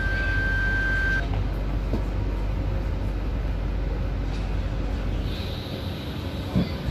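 Subway train running, a steady noise heard from inside the car. A thin high steady tone cuts off about a second in, and the low hum drops away near the end.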